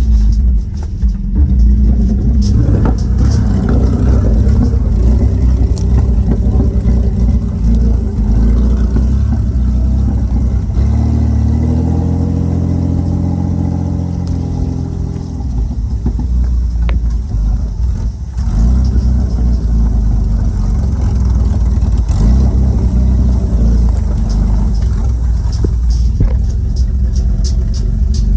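Nissan Patrol's RB30 straight-six running loud with no exhaust (straight-piped), driven hard off-road. About halfway through, the engine note climbs and falls back in one clear rev, and a few sharp knocks come through.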